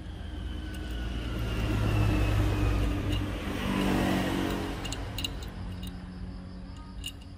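A road vehicle passing by: engine rumble swells to a peak about two to four seconds in, then fades, with a whine that falls in pitch as it goes past.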